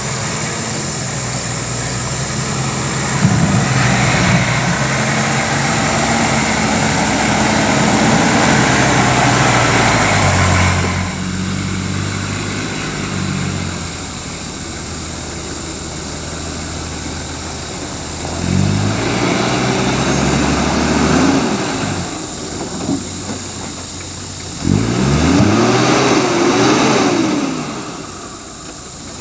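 Toyota Land Cruiser 80 Series 4.2-litre turbo-diesel engine labouring under load as the truck crawls up a deep rutted track. The revs surge and ease off several times, with the strongest pulls a few seconds in and again near the end.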